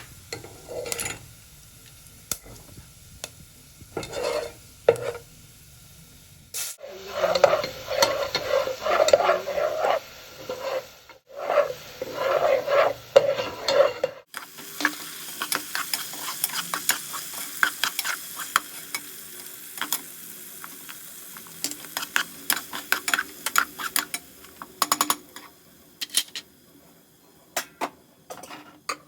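Food sizzling in a hot pan while a utensil stirs and scrapes it, with taps and clinks against the pan. From about halfway there is a steadier sizzle with rapid crackling clicks.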